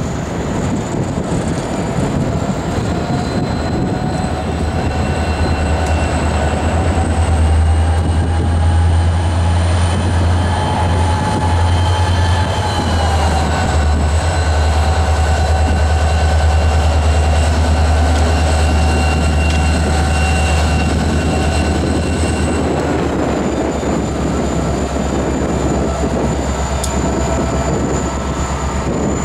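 CN SD40-2W diesel-electric locomotive passing slowly with autorack cars: deep steady engine rumble with a high whine over it. The whine's pitch rises gently, then steps down about halfway through and again near the end.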